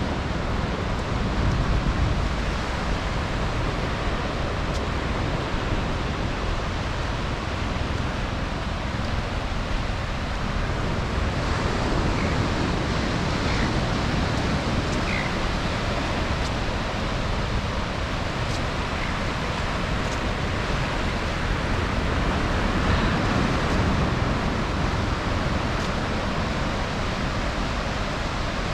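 Ocean surf washing steadily onto the beach, a constant rushing noise, with wind rumbling on the microphone.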